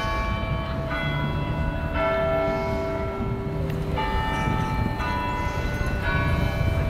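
Tower bells ringing a slow tune, one note struck about every second at changing pitches, each ringing on into the next, over a steady low rumble.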